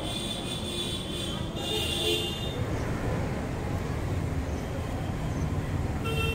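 Steady road-traffic rumble from passing vehicles, with brief high-pitched toots near the start and about two seconds in, and a short horn honk near the end.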